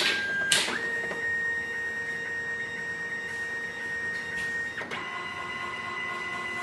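Canon imageCLASS MF642Cdw colour laser all-in-one scanning: two clicks as it starts, then its scanner motor whining steadily at one pitch, switching to a slightly higher pitch about five seconds in.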